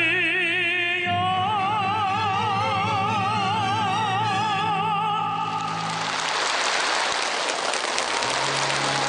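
A singer holds a long final note with a wide, even vibrato over an orchestral backing, the close of an operatic-style song. About five and a half seconds in the voice gives way to a hissing, rain-like wash of noise. Near the end soft, low sustained tones of a new piece of music come in under it.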